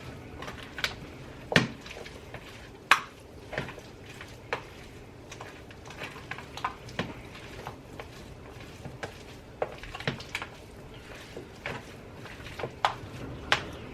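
A utensil stirring chicken salad in a bowl, clinking and scraping against the sides in irregular clicks, a few of them louder.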